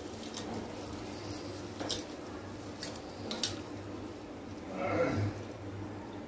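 Hand swishing rice and lentils in water in a steel bowl, washing the grains before soaking, with scattered small clicks against the steel. About five seconds in, a short pitched cry is briefly the loudest sound.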